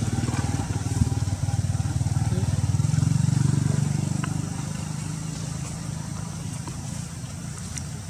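A motor vehicle's engine running, growing louder to a peak about three seconds in and then fading away.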